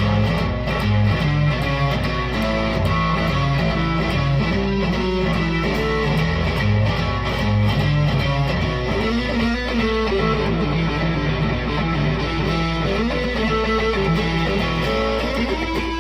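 Squier Pro Tone Stratocaster electric guitar being played, a continuous run of distinct notes that stays low for the first half and moves higher after about nine seconds.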